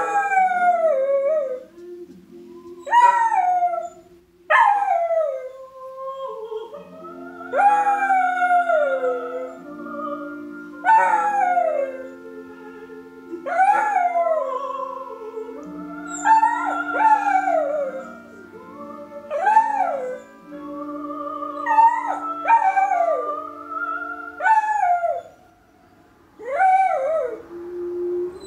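A dog howling along to opera singing on the television: about a dozen short howls, each swooping up and then sliding down in pitch, a few seconds apart. Underneath, the soprano and orchestra of the film's opening song keep playing.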